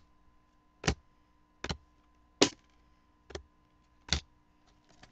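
Football trading cards handled one at a time as a pack is gone through: six sharp clicks of card stock, a little under a second apart, then a few faint ticks near the end.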